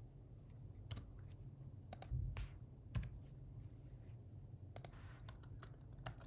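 Faint computer keyboard and mouse clicks: single clicks about a second apart, then a quick run of keystrokes about five seconds in.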